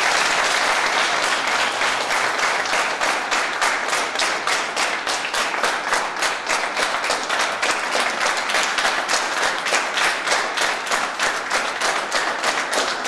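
Audience applauding: many people clapping, steady and loud, the claps falling into a more even rhythm after a few seconds.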